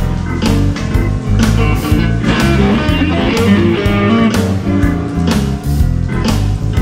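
Music with a steady drum beat, bass and electric guitar.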